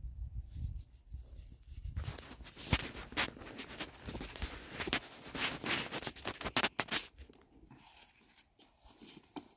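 Rustling and crackling of dry grass and brush with many scattered clicks and snaps, starting about two seconds in and dying down near the end, after a low rumble at the start.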